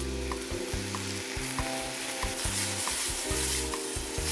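Sliced onions sizzling as they fry in olive oil in a stainless steel stockpot, stirred with a wooden spoon. Faint background music plays underneath.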